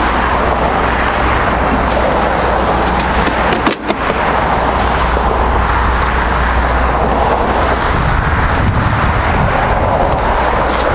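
Steady noise of road traffic from cars passing on the road, with a brief click and dropout a little under four seconds in.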